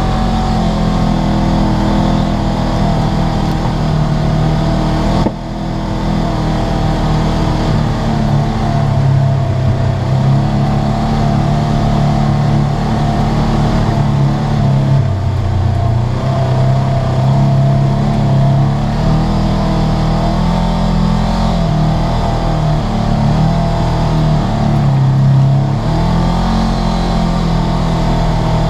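Polaris RZR 900S side-by-side's twin-cylinder engine running under way, its note rising and falling with the throttle, with a brief sudden dip about five seconds in, heard from inside the cab.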